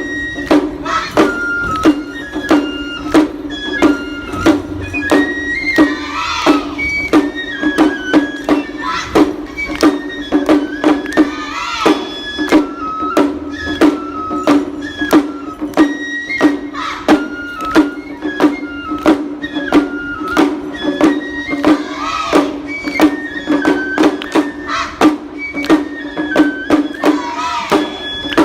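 Lion-dance music of the troupe's own composition: a regular drum beat under a high, stepping flute-like melody and a steady low drone.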